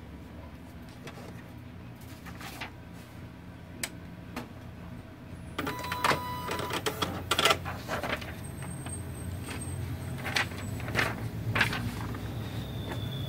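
Epson LX-300+ dot-matrix printer being handled: a few light clicks, then from about halfway in a louder stretch of mechanical whirring with rapid ticking and several sharp clicks from the printer's mechanism.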